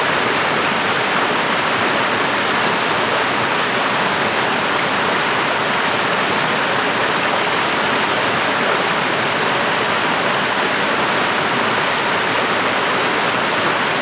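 Mountain stream cascading over rocks in a series of small falls: a steady rush of water.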